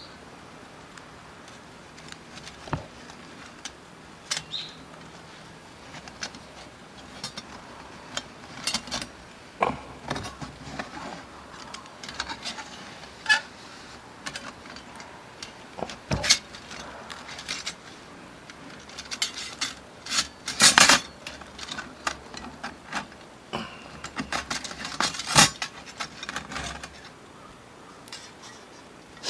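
Irregular clicks and clinks of small metal parts being handled and set down, busier in two clusters in the second half.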